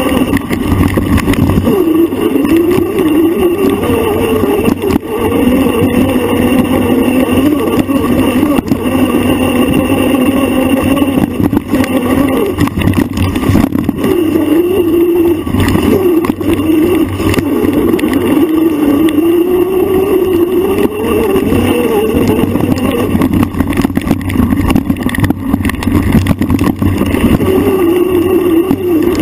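A bike's motor running hard over rough ground, its pitch rising and falling again and again with the throttle, with scattered knocks and rattles from the bumps.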